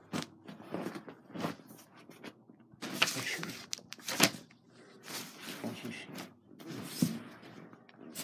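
Bed sheets rustling as they are pulled and pushed around by hand close to the phone, in irregular bursts with a few sharp knocks.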